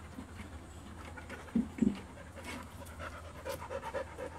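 Dog panting in quick, even breaths, about four a second, plainest in the second half. Two short, louder low sounds come just before the middle.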